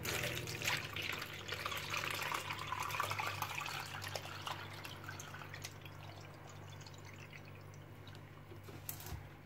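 Homemade apple cider vinegar poured in a thin stream into a plastic mesh strainer, splashing into the liquid pooled on the mesh and draining through into a plastic jug. The pouring is strongest for the first few seconds, then tapers off, with a short click near the end.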